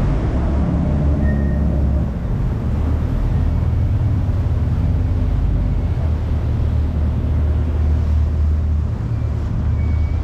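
Charter fishing boat's engine running with a steady low rumble, with wind buffeting the microphone.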